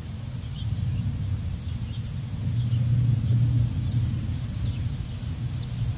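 Scooter engine running with a low, steady hum that grows a little about a second in, under a constant high trill of crickets and a few short bird chirps.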